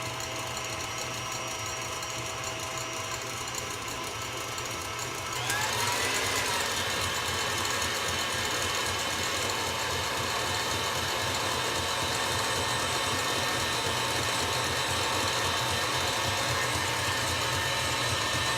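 Stand mixer running with its whisk, beating egg whites into an Italian meringue while hot honey syrup is added. About five seconds in it grows louder with a rising whine, then runs steadily.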